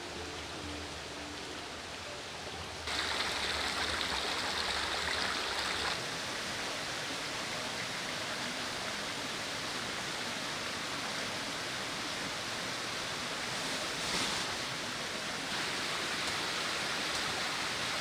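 Steady rushing noise with no distinct events. It turns abruptly louder and brighter about three seconds in, and shifts again a few seconds later.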